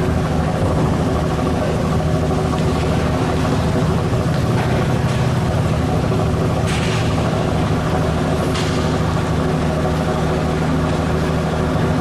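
Fishing-trawler engines running steadily under way, a low even hum. Two brief rushes of noise come past the middle.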